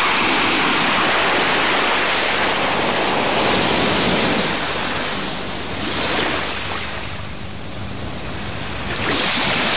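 Ocean surf washing onto a beach, a steady rush that eases off in the middle and swells again near the end.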